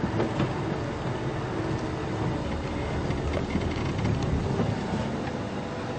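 Open safari vehicle driving along a dirt track: the engine runs steadily under a constant road noise, with a few small knocks and rattles over the bumps.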